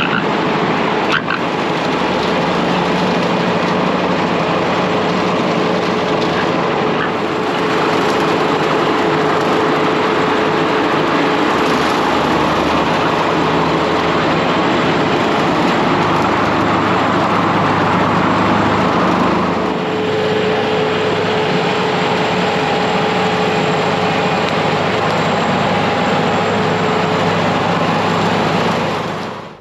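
Riding lawn mower's engine running steadily while mowing pasture grass. It eases slightly a little past the middle and cuts off suddenly at the end.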